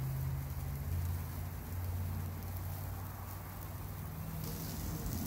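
Steaks sizzling and charcoal crackling inside a lidded Weber Smokey Joe charcoal kettle, a steady hiss with a constant low hum underneath.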